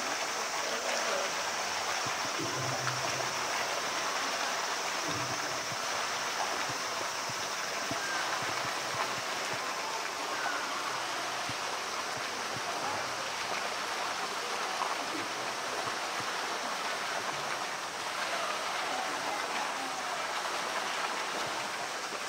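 Steady rush of running water in a polar bear pool enclosure.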